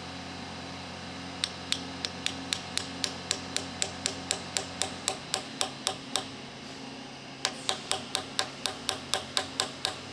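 Brass hammer tapping a steel dowel pin into a press-fit hole in a machined aluminium part: a quick run of sharp metallic taps, about four a second, a short pause past the middle, then a second run.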